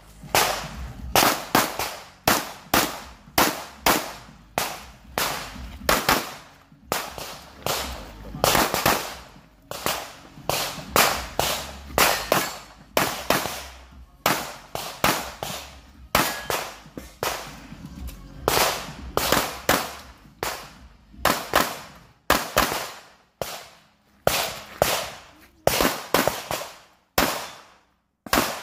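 Rapid .45 calibre pistol shots from a practical-shooting stage, fired in quick pairs and strings with brief pauses between positions, each shot ringing out with a short echo.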